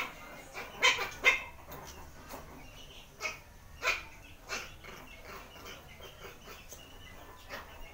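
Shih Tzu puppies wrestling and giving short, sharp play barks and yips, several in quick succession, loudest in the first half.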